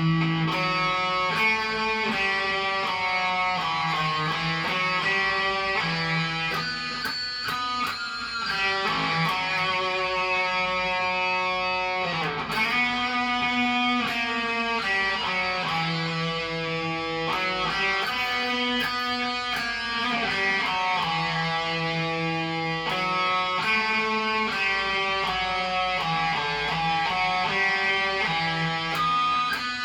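Cort Viva guitar being played: plucked chords and ringing notes that change about every second or so, at a steady level.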